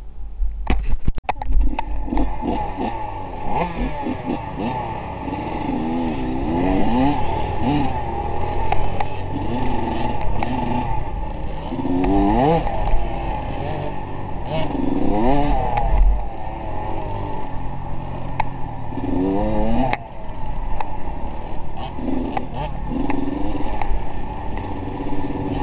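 A few sharp clicks, then a motor vehicle's engine running and revving up and down again and again over a rattling, scraping background.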